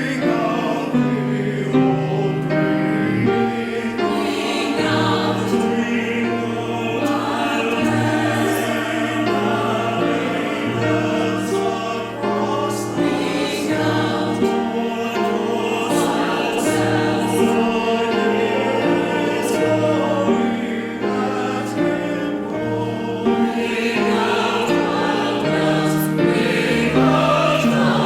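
Church choir singing, with accompaniment.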